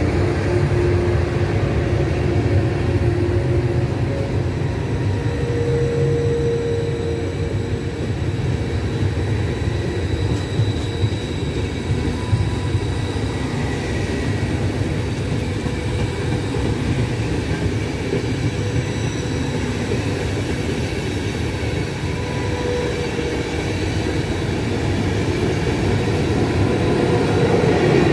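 Trenitalia Intercity train running slowly past a station platform: a steady rumble of coach wheels on the rails, with a few faint high tones over it. It grows a little louder near the end as the rear power car goes by.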